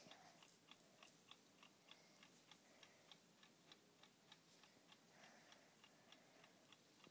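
Faint, fast, even ticking of an analog wind-up chess clock running during a game.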